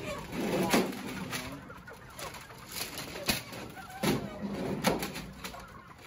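Crated broiler chickens clucking and peeping, with sharp knocks and clatter as the loaded poultry crates are handled and banged about during unloading.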